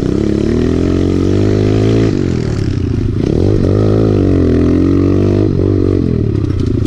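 Kawasaki KLX110 pit bike's small four-stroke single-cylinder engine running close to the microphone while the bike is ridden, its pitch rising and falling several times as the throttle is opened and rolled off.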